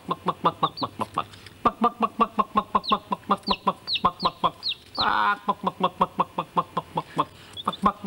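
A man imitating a mother hen's call: rapid short clucks, about six or seven a second, with a brief pause twice and one longer drawn-out call about five seconds in, calling a day-old chick. The chick answers with thin high peeps that slide downward.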